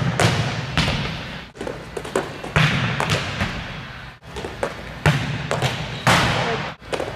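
Volleyball spikes in a large gym: sharp slaps of a hand on the ball and the ball smacking the floor, echoing. The loudest hits come about every two and a half seconds.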